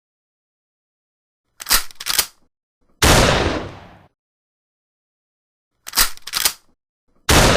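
A shotgun is reloaded with two quick clacks of the action, then fired, each shot dying away over about a second. The reload-and-fire cycle happens twice, the second shot coming right at the end.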